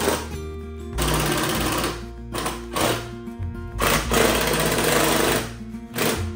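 Background music with a deep bass line that steps from note to note, broken by several loud, noisy bursts with a rapid, rattling texture.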